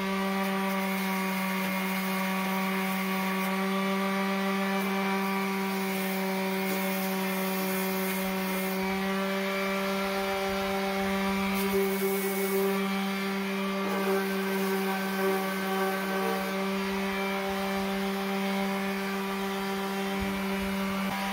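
Bauer corded electric sander running steadily against the rusty, painted steel of a lawn mower deck, its motor humming at a constant pitch.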